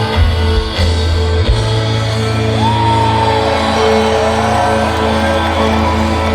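Live rock band playing over a loud PA: a held bass note and sustained guitar chords, with singing.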